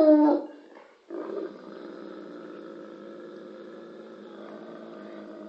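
A bloodhound's bark trailing off in the first half second. After a short pause, a much quieter steady drone with a held pitch runs for about four and a half seconds and cuts off just after the end.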